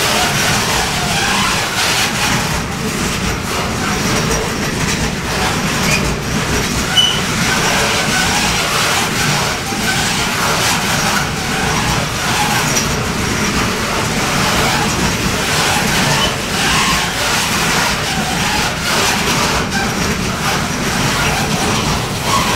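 Freight train of covered goods wagons rolling past close by: a steady, continuous noise of wheels running on the rails, with faint clattering.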